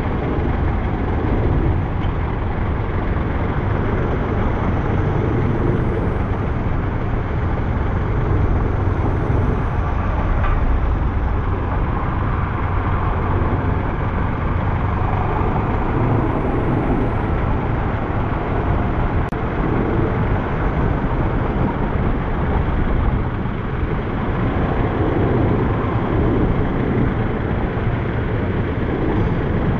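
Steady low noise of riding through street traffic: wind on the microphone and road noise from the moving vehicle carrying the camera, with motorbikes passing close by.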